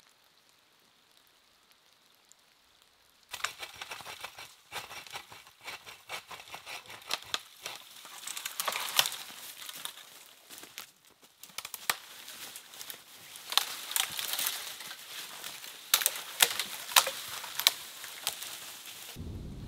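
Dry leaf litter and dead wood crunching and crackling as firewood is gathered, starting about three seconds in. Irregular sharp snaps of dry branches run through it, the loudest in the second half.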